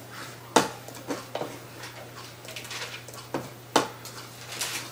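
Computer mouse clicking as lines are drawn in a CAD program: several sharp, irregularly spaced clicks, two of them louder, over a steady low electrical hum.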